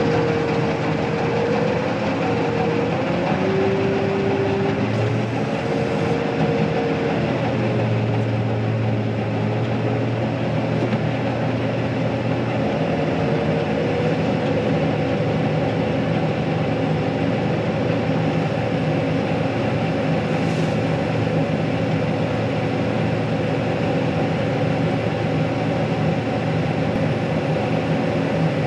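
Heavy farm vehicle engine running steadily under load, with a whining tone that wavers up and down over the first twelve seconds or so and then holds steady.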